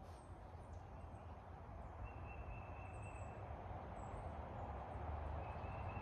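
Quiet outdoor background noise with a low rumble, slowly getting louder, with a few faint high chirps and two faint high whistle-like tones, each about a second long.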